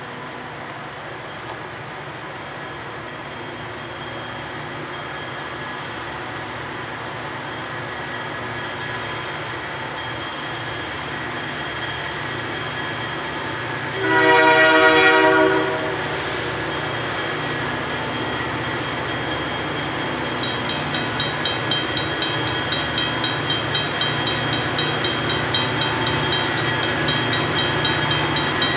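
EMD diesel freight locomotives working up a grade as they approach, their engine drone growing steadily louder. About halfway through, the locomotive horn sounds one blast of about a second and a half, and near the end a fast, regular beat comes in on top of the engines.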